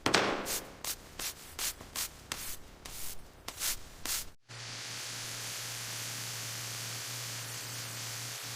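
Rhythmic abrasive scrubbing strokes, as of sanding rusted metal, about two a second. After an abrupt cut a little over four seconds in, a steady hiss with a low hum takes over.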